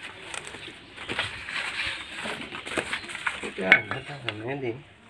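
Fresh banana leaves being handled and cut with a curved knife on a concrete floor: rustling with short scrapes and ticks. A voice is heard briefly about three and a half seconds in.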